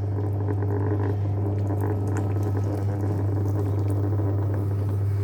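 JW Ratcliffe and Sons electric pottery wheel running with a steady low hum, under the wet swishing of porcelain clay and water being worked by hand on the spinning wheel head.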